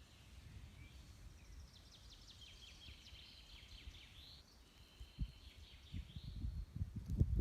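A songbird singing a run of quick chirps and trills for a few seconds. Dull low thumps grow louder toward the end.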